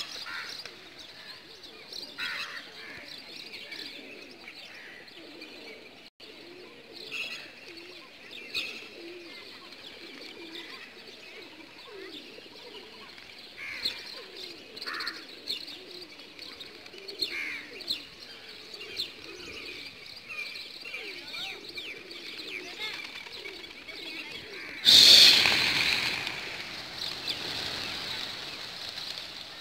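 A flock of feral pigeons cooing steadily, with short high chirps of other birds over it. About 25 seconds in, a sudden loud rush of wings as much of the flock takes off, fading over a few seconds.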